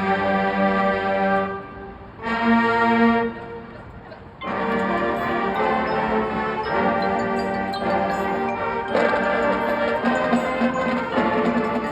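High school marching band playing: two short held chords with brief pauses between them, then the full band comes in about four seconds in and plays on steadily and loudly.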